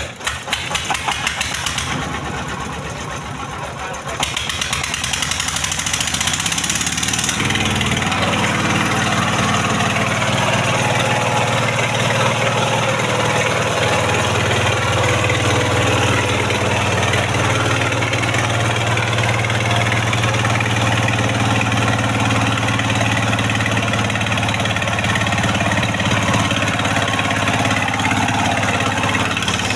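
Engine of a truck-mounted mobile circular sawmill starting up. It turns over in rapid even pulses, picks up in steps, and settles into a steady run about seven seconds in.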